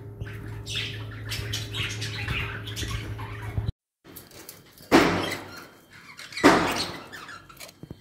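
Small pet parrots chirping in their cages: cockatiels chirp over a steady low hum, then, after a brief gap, two loud sharp sounds come about a second and a half apart by the budgerigar cage.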